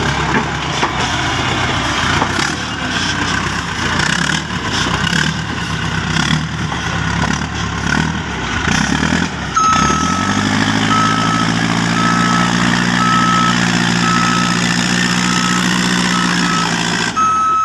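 Heavy diesel earthmoving machine working under load. About ten seconds in it changes abruptly to a steady engine drone with a reversing alarm beeping repeatedly, about one to two beeps a second.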